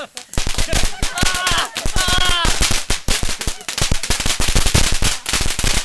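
Fireworks going off in a fast, continuous string of sharp bangs and crackles, like a machine gun, with only a brief break about half a second in.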